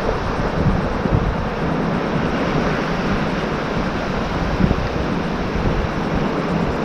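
Wind buffeting the microphone in uneven gusts over the steady wash of breaking surf.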